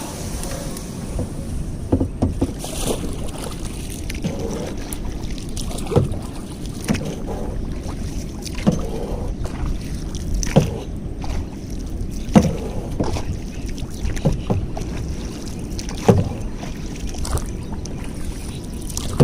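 Paddles dipping and pulling through water from a small rowed boat or kayak, a splash or knock every second or two over a steady rush of water and wind.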